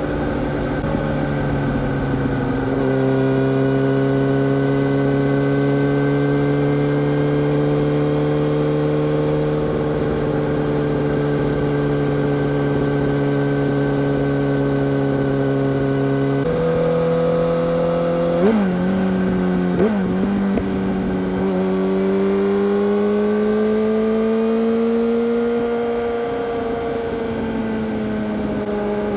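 2005 Yamaha YZF-R1's 998 cc inline-four through a Yoshimura full-system exhaust, running steadily under way. The engine note holds level for long stretches and shifts pitch a couple of times. It gives two brief sharp blips about two-thirds of the way through, then climbs slowly near the end.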